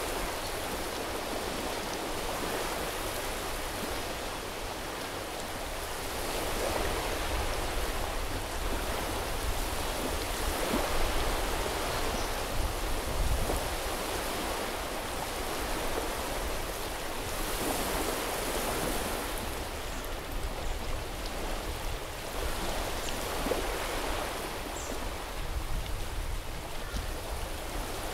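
Sea waves washing onto a beach: a steady hiss of surf that swells every few seconds as each wave comes in and draws back.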